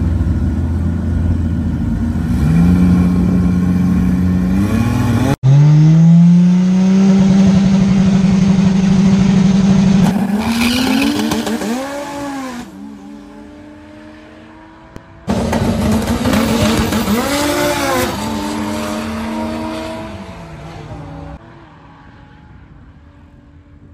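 Turbocharged 2JZ inline-six in a Datsun 280ZX drag car launching and pulling hard down the strip, its pitch climbing steadily, then rising and dropping as it shifts through the gears of its TH400 automatic. Heard in several abrupt takes, the sound fades away near the end as the car runs off.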